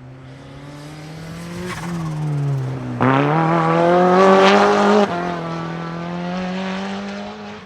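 A street-legal car's engine running hard up a hillclimb course. The engine note falls as the car slows about two seconds in. It then accelerates past, its pitch climbing and loudest between about three and five seconds in, before the sound drops away suddenly and fades.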